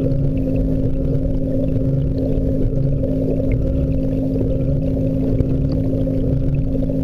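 Steady low hum and rumble of aquarium pump and water flow, heard through an underwater camera submerged in the tank. A few faint ticks sound over it.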